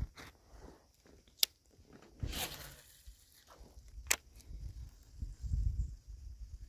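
Two sharp clicks a few seconds apart, with a short swish between them, over patches of low rumble.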